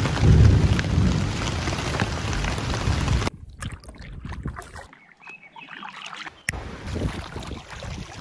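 Wind and water noise on an open lake, a loud rumble strongest at the low end. It cuts off abruptly about three seconds in. After a much quieter stretch it returns just as abruptly about six and a half seconds in.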